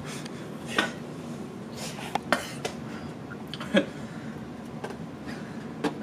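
A handful of short, scattered clinks and knocks of a utensil against a dish or container.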